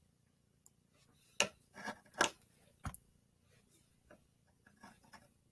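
Scattered short clicks and taps from a hand on a laptop keyboard and desk while capturing stop-motion frames. The clearest come about one and a half, two and a quarter, and three seconds in.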